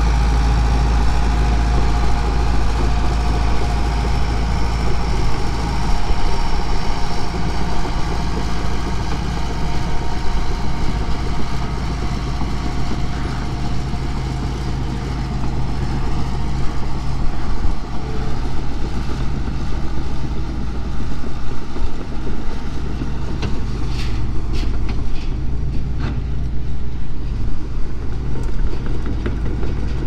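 Caterpillar bulldozer diesel engine running steadily, with a few sharp clanks near the end.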